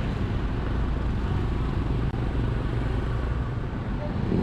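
Steady low rumble of motor vehicle engines, typical of traffic running close by.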